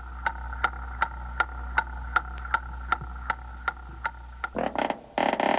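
A clock ticking evenly, about two and a half ticks a second, over a low hum. Near the end a rising sound leads into a loud buzzing rattle, the loudest sound here.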